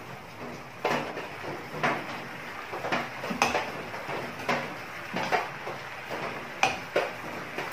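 A cooking spoon knocks and scrapes against a frying pan about once a second while basting a whole chicken. Underneath, thick soy and oyster sauce bubbles steadily as it reduces.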